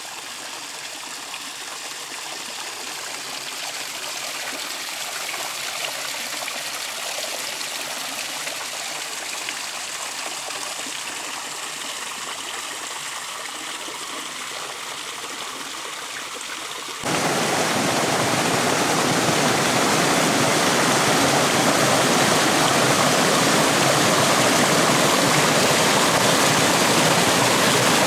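Rushing water, a steady hiss of flow that jumps suddenly much louder about two-thirds of the way in, to water pouring down a small rocky cascade close by.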